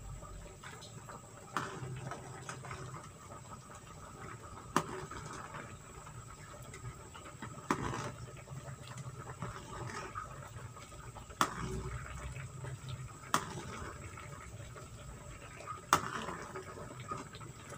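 Fish-head soup simmering in a wok, stirred with a metal spatula that clinks sharply against the pan every two or three seconds.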